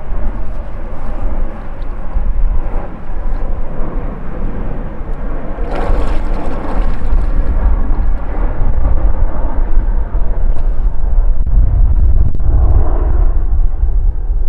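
Wind buffeting the microphone: a heavy, uneven low rumble. There is a brief louder rush of noise about six seconds in.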